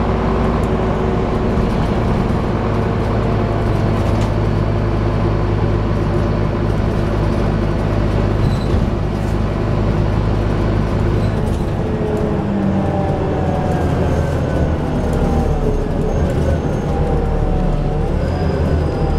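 Scania double-decker bus's diesel engine heard from inside the passenger saloon, being worked hard. It holds a steady note for the first half, then changes about twelve seconds in, and its pitch climbs as the bus pulls away again, rising once more near the end.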